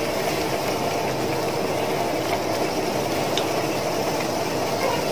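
Samosas deep-frying in hot oil: a steady sizzle and bubbling with a few faint crackles.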